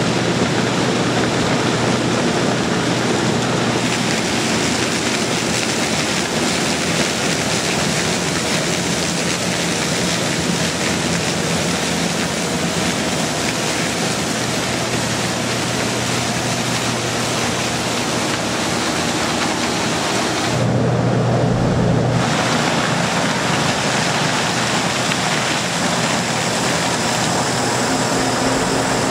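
Case IH combine harvester running while harvesting maize: a steady engine hum under a loud, even rushing noise from the corn header and threshing. About 21 seconds in the low hum briefly grows louder.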